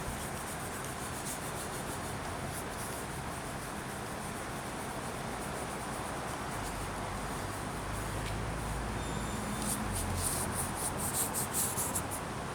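Steady background hiss with a low rumble in the middle, then from about ten seconds in a run of short, scratchy rubbing strokes as the glass of an old CRT picture tube is wiped clean.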